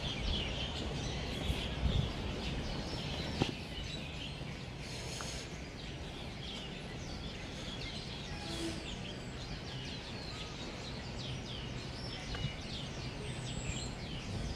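Small birds chirping over a steady low outdoor background, with many short quick chirps throughout and a faint knock about three and a half seconds in.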